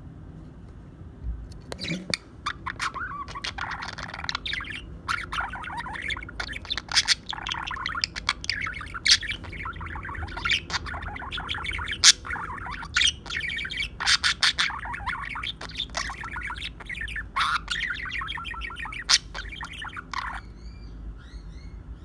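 White budgerigar warbling: a long, continuous chatter of quick chirps, clicks and squawks, starting about two seconds in and stopping shortly before the end, followed by a few faint chirps.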